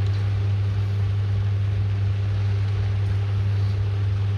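A steady low-pitched hum that holds level, with no clicks, knocks or changes.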